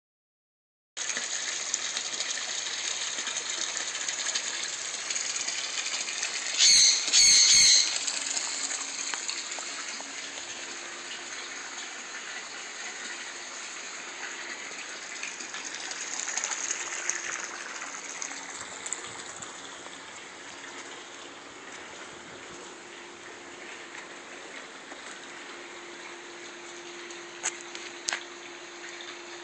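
Water running steadily with a faint pump hum under it. About seven seconds in come three loud, harsh bursts, and near the end two short clicks.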